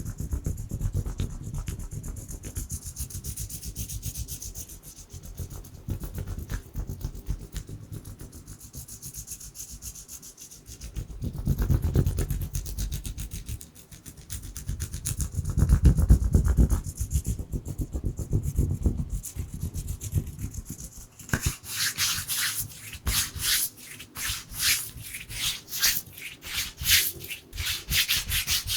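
ASMR hand sounds: bare hands rubbing together. For most of the stretch the rubbing is slow and soft and swells louder twice, then about two-thirds of the way through it turns to fast, dry, crisp rubbing strokes.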